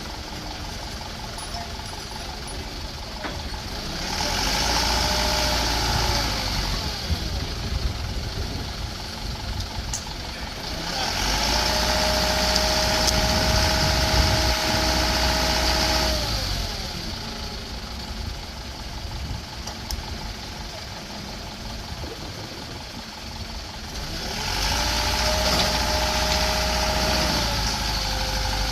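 Vehicle noise in three loud spells of a few seconds each. Each spell carries a steady whine that rises as it starts and sinks as it ends, over a low rumble and a hiss.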